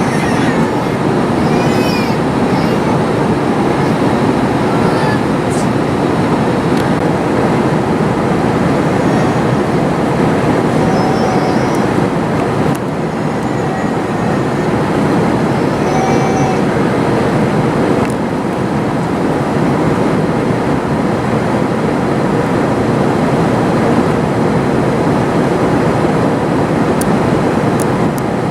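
Steady roar inside the cabin of an Airbus A321 in flight: engine noise and airflow over the fuselage, heard from a window seat.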